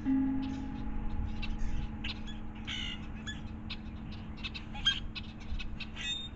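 Wild birds calling and chirping outdoors: many short high chirps throughout, with a louder call about three seconds in. A steady low hum runs underneath.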